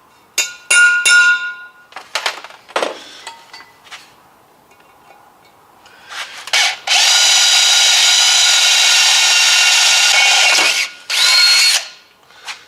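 Three quick hammer blows on a punch against a cast-iron brake drum, each one ringing, marking the spot for the drill. Then a power drill bores into the drum, running steadily with a whine for about four seconds, stopping, then giving a shorter second burst.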